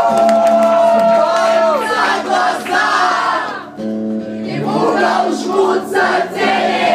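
Live rock band playing, loud and dense, with guitars over a steady low foundation. For about the first two seconds a held, bending sung note stands out; after that many voices, the audience singing along, take over.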